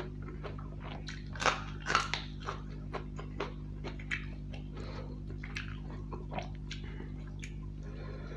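Close-miked eating sounds of rice and chicken curry eaten by hand: irregular wet smacks and chewing clicks, loudest about one and a half to two seconds in, over a steady low hum.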